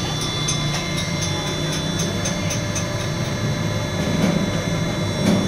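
Mini screw-type cold oil press (oil expeller) running, a steady motor and gear hum with faint regular ticking of about four a second in the first couple of seconds, and a short knock near the end.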